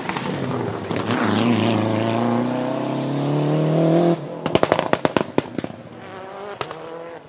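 Rally car engine revving hard, its note rising for about four seconds, then lifting off the throttle and firing a rapid string of sharp exhaust bangs and pops on the overrun that thin out into scattered cracks.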